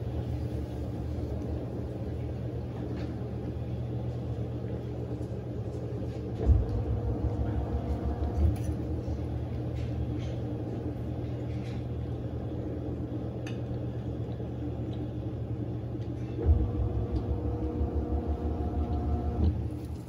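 Panasonic NA-F140B6 agitatorless top-loading washing machine running: a steady motor hum with a rapid low throbbing that grows stronger twice, about six seconds in and again in the last few seconds.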